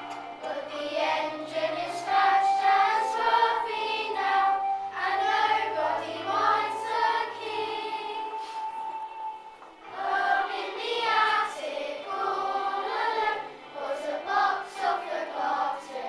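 Children's choir singing a song with backing accompaniment, a phrase ending with a held note and a short gap about ten seconds in before the next phrase starts.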